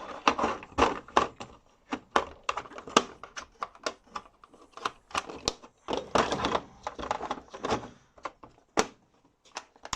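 Irregular clicks and clatter of small hand tools and socket-set parts being handled and set down in a toolbox drawer.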